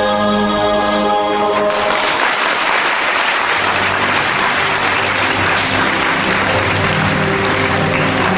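Music holds a sustained chord, then audience applause breaks out about two seconds in and carries on loudly, with the music continuing softly beneath. The applause greets the end of the dance.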